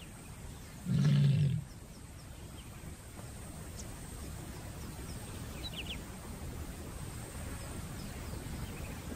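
A lioness gives one short, loud, low call about a second in, then falls quiet against steady outdoor ambience with a few faint bird chirps. It is the call of a lioness in heat advertising to nearby males that she is ready to mate.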